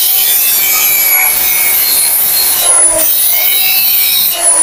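Handheld angle grinder running steadily, its disc grinding a joint in steel tubing smooth, a harsh grinding noise over the motor's whine. The grinding breaks off briefly near the middle.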